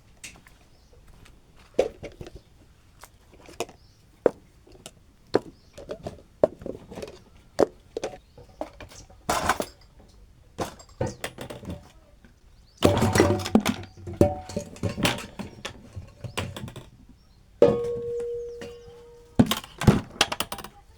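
Dishes and metal pots being washed and handled: scattered clinks and knocks, a busier clatter about two-thirds of the way in, and one metal dish struck near the end that rings on for a couple of seconds.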